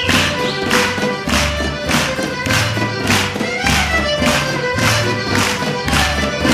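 Serbian folk dance music with a fast, even beat and a low bass pulse under a held melody line.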